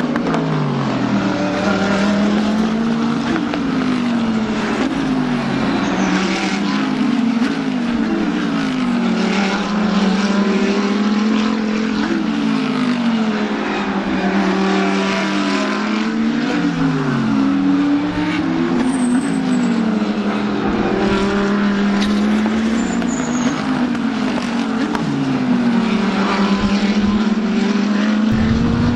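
A pack of GT3 race cars passing in a continuous stream. Several engines are revving at once, with many overlapping rising and falling pitches as they shift gears and go by.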